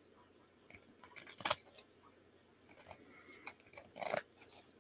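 A few short, scattered rustles and scrapes of paper being handled during crafting, the loudest about four seconds in.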